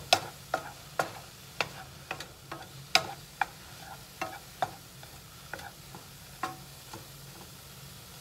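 Wooden spoon stirring food in a hot nonstick skillet, knocking against the pan about twice a second, over a faint sizzle. The knocks stop near the end, leaving only the sizzle.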